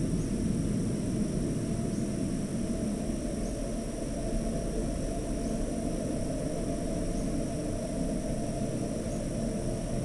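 Crickets trilling steadily in several high, unbroken tones over a constant low rumble.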